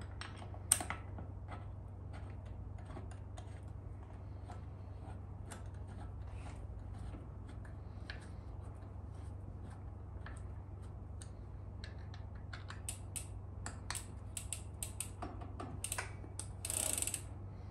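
Scattered light metal clicks and ticks from a 6 mm hex key turning in a bicycle pedal's axle as the left-hand, reverse-threaded pedal is threaded into the crank arm, over a steady low hum. A sharper click comes about a second in, and a brief louder rustle near the end.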